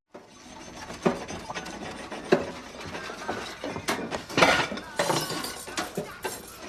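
Plates and cutlery clacking and clinking on a hardwood dinner table: many scattered sharp knocks and clinks over a steady background din.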